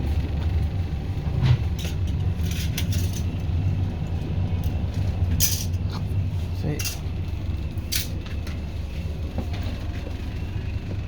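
A steady low rumble with several short light clinks and clatters scattered through it, and faint voices.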